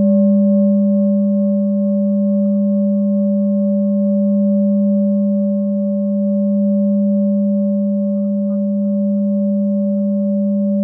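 Large singing bowl ringing steadily: a strong low hum with a clear higher overtone above it, holding its level without dying away.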